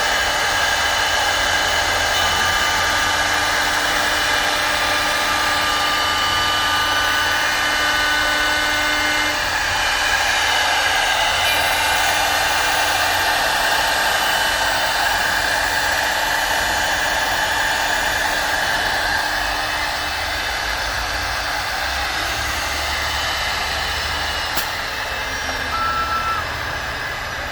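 CNC router spindle on a wood lathe running under load as it cuts groove lines into a turning wooden cylinder: a steady high whine over cutting noise.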